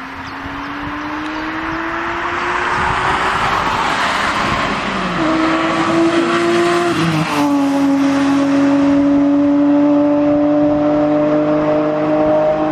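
BMW E36 M3's straight-six engine coming closer and growing louder over a rushing noise, its note stepping up about five seconds in and dropping in pitch about seven seconds in as it goes by. The engine note then holds steady and loud.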